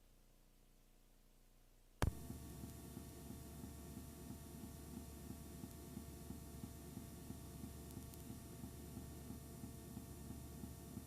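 Near silence, broken about two seconds in by a sharp click, after which a steady electrical hum with a faint regular pulsing sets in.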